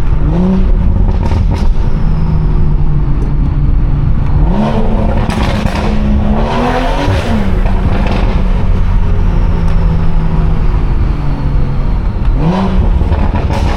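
BMW 340i's turbocharged B58 inline-six engine and exhaust pulling under way, with a steady low drone. The revs climb a few times: briefly near the start, for about three seconds from around the middle until they drop suddenly, and once more near the end.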